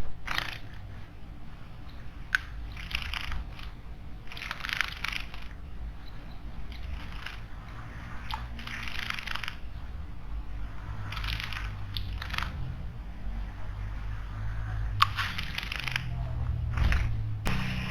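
Small bird bathing in a stone garden water basin: about eight short bursts of splashing and wing-fluttering at irregular intervals, with a few sharp ticks between them.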